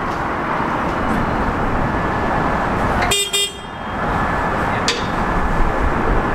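A single short horn toot about three seconds in, over a steady mechanical rumble, with a sharp click near five seconds.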